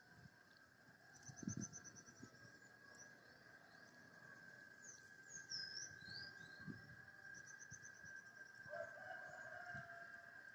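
Faint birds chirping and trilling a few times, over a steady high-pitched hum held on one note.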